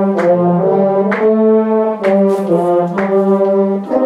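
A section of a school concert band playing a passage of held notes in several parts at once, moving to a new chord every half second or so. The director judges the note changes not as seamless as they should be.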